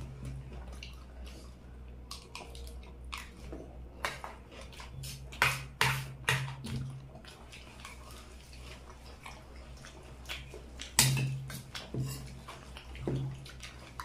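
Spoons clinking and scraping against bowls of chaat during eating, as scattered sharp clicks with a few louder taps, mixed with wet eating sounds.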